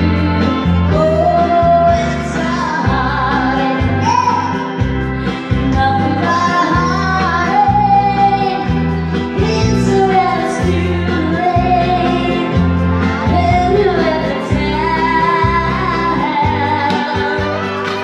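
A woman singing karaoke into a corded microphone, her amplified voice over a backing track with guitar and a steady pulsing bass beat.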